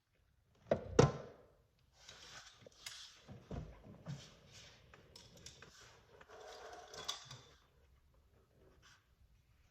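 A loud thump about a second in, followed by a few seconds of rustling and scraping handling noise with small clicks.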